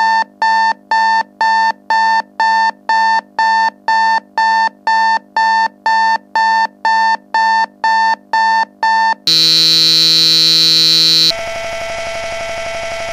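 Electronic alarm beeping rapidly and harshly, about two and a half beeps a second. About nine seconds in it gives way to a loud continuous buzzer tone, which drops to a quieter harsh buzz about two seconds later.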